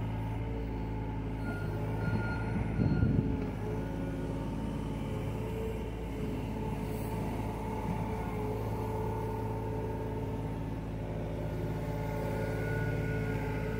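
John Deere mini excavator's diesel engine running steadily under load while the hydraulics swing and work the bucket, with tones that shift as the controls are moved. A louder clatter about three seconds in.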